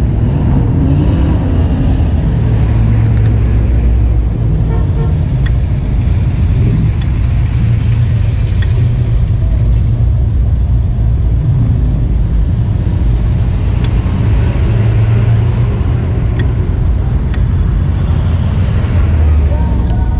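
Steady low rumble of a car driving slowly, with a few faint, irregular clicks over it.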